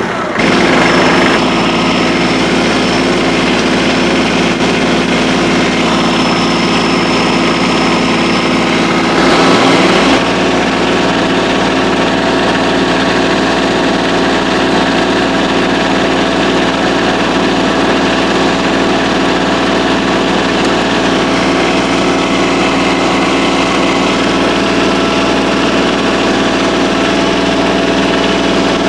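Kubota compact tractor's engine running steadily under load, driving a mini round baler. About ten seconds in there is a brief louder surge and change in pitch before it settles back to the same steady running.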